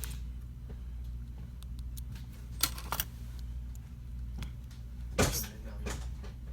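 Several sharp small clicks and snaps as the internal parts of a smartphone are pressed and closed back together, the loudest about five seconds in, over a steady low hum.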